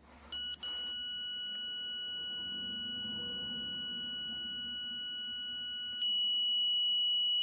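Handheld stud and live-wire detector sounding a short beep, then a continuous high tone while held on plasterboard. About six seconds in the tone changes note as its AC warning lights, signalling a live cable behind the board.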